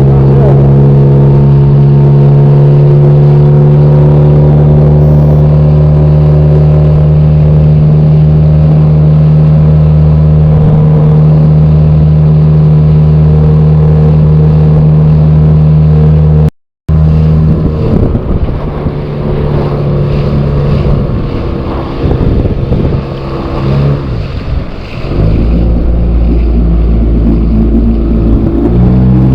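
Outboard motor driving a small inflatable catamaran boat at a steady pace. After a short break about 17 seconds in, the engine note changes and dips several times, then settles into a steady run again near the end.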